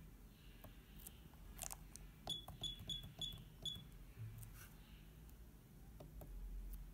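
DDCSV1.1 CNC controller keypad being pressed: soft key clicks, and about two seconds in a run of five short, high beeps in quick succession from the controller's key buzzer as keys are pressed repeatedly.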